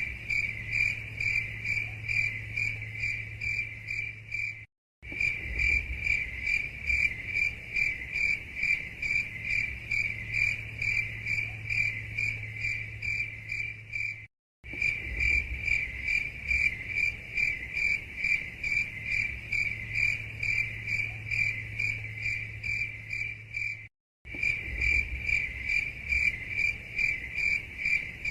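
Cricket chirping in a steady, rhythmic trill of about two or three pulses a second, over a faint low hum. Three times the sound drops out for a moment of silence before picking up again.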